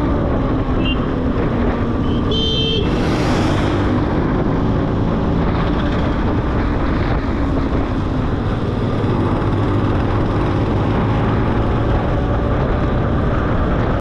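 Motor scooter's engine running while riding at road speed, with steady wind and road noise on the microphone. A brief high-pitched tone sounds about two and a half seconds in, followed by a short rush of wind.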